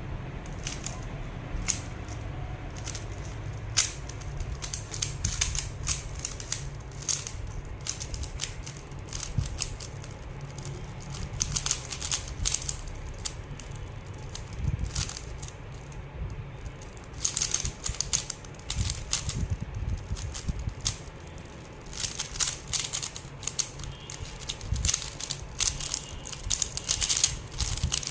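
3x3 Rubik's cube being turned rapidly in a timed speed solve: quick runs of plastic clicks and rattles as the layers snap round, in bursts with short pauses between them.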